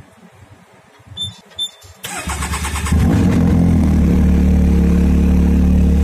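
Two short electronic beeps, then the Can-Am Maverick X3's three-cylinder Rotax engine is cranked by its starter for about a second, catches and settles into a steady idle at about 1450 rpm.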